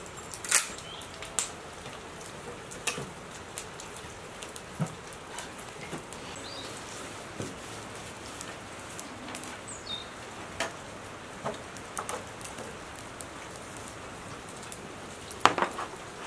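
Light rain pattering steadily, with scattered sharp drips and ticks. The loudest clicks come just after the start and near the end.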